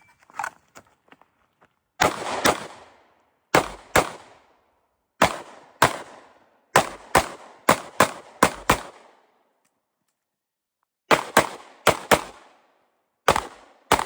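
Rapid 9mm pistol fire from a stock Glock 19, about twenty shots with a short echo after each. It opens with three evenly spaced double-taps, then a fast string of about eight shots, a pause of about two seconds, and two more quick strings near the end.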